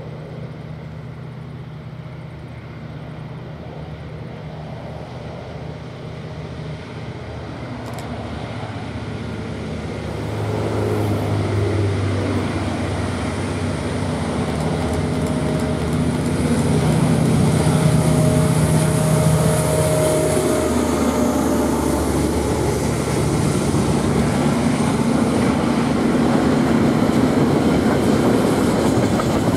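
DL-class diesel-electric locomotive DL 9072 rumbling closer under power, its engine growing louder until it passes about halfway through. Its freight wagons then roll by with a steady rumble of wheels on rail.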